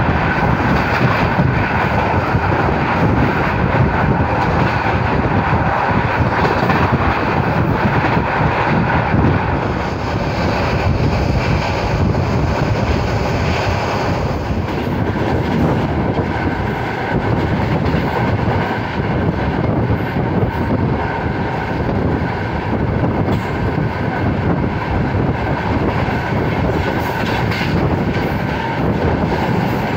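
Express passenger train running at speed, heard from aboard: a steady rush of wheels on rail and wind noise.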